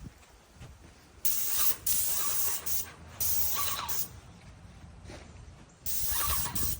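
Paint spraying in four hissing bursts, each about a second long, as the sprayer trigger is pulled and released.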